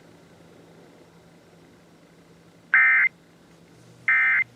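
Emergency Alert System end-of-message data bursts: two short, harsh, buzzy digital bursts about a second and a quarter apart over a faint hum. They are the coded signal that closes a Required Monthly Test broadcast.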